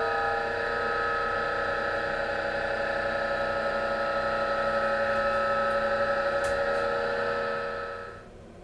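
Panasonic FY-17CY1MD bathroom ceiling exhaust fan running with an abnormally loud rotation noise, a steady sound with several high tones, the sign of a failing fan motor. It drops away about eight seconds in.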